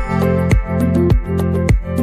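Background music with a steady beat: held electronic chords over a kick drum about twice a second.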